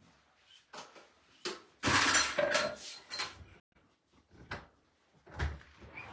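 Household handling noises: a few short knocks and bumps, with a longer, loud rustling clatter about two seconds in, then two more knocks later on.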